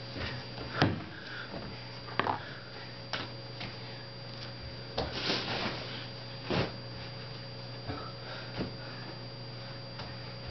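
Scattered soft thumps and rustles: bare feet stepping on futon mats and towels being picked up and handled, over a steady low hum.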